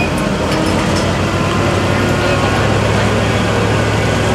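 Turbocharged diesel engine of a New Holland light limited pulling tractor running steadily at one low speed, without revving.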